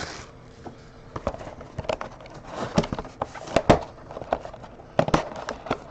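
Sealed box of trading cards being unwrapped and opened by hand: irregular sharp clicks and crinkles of plastic wrap and cardboard.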